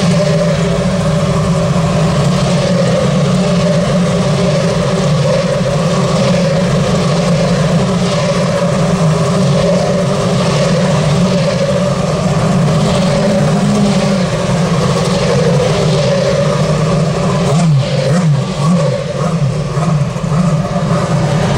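Steady low drone of a car's engine and road noise heard from inside the cabin as the car rolls slowly, wavering briefly near the end.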